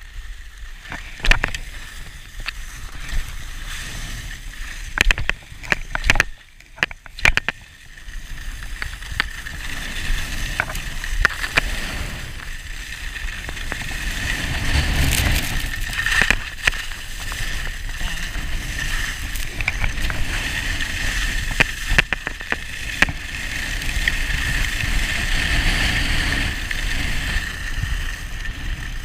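Skis sliding and scraping over packed groomed snow at speed, a continuous rushing noise. A few sharp knocks come in the first several seconds, and after that the rush grows steadier and louder.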